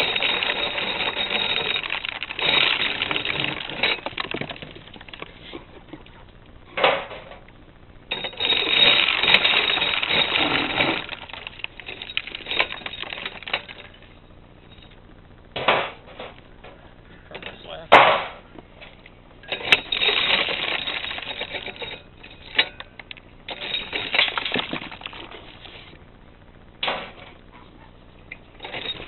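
Hand-cranked cast-iron HaoYu S-17 corn sheller clattering as ears of corn are cranked through it, stripping the kernels off onto the board. The shelling comes in several bursts of a few seconds each, with single sharp knocks between them.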